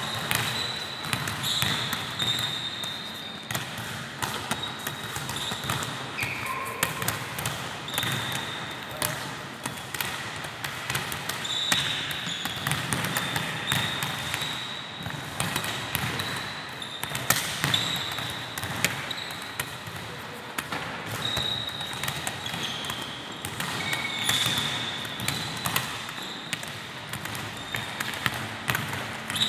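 Many volleyballs being set overhead and bouncing on a wooden gym floor: an irregular, overlapping patter of ball slaps and thuds, with short high sneaker squeaks now and then.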